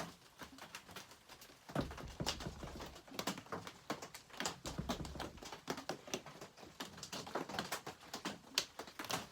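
Scattered light clicks and knocks of small chainsaw parts and hand tools being handled on a workbench, with two brief low hums about two and five seconds in.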